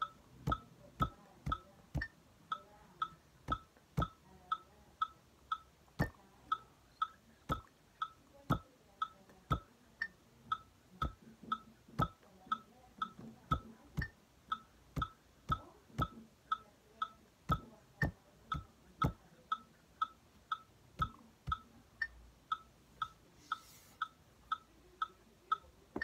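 A metronome ticking steadily about twice a second, while a hand taps a rhythm-reading exercise on a tabletop in louder knocks that fall in an uneven pattern against the beat.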